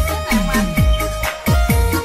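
Music with a steady beat of deep bass drum hits about twice a second under held melody notes.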